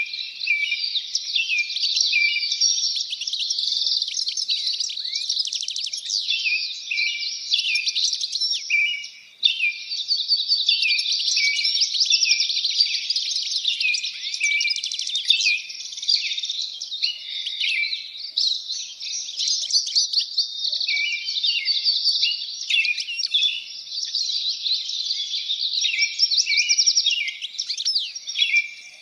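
Many small songbirds chirping and singing at once in a dense, unbroken chorus of quick high chirps and trills.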